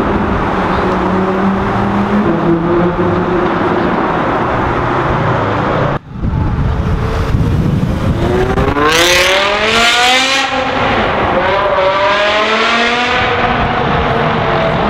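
Loud sports-car engine in a tunnel: a rough, steady exhaust note for the first six seconds, then, after a cut, an engine accelerating hard, its pitch climbing, dipping briefly at a gear change about ten seconds in, and climbing again before easing off.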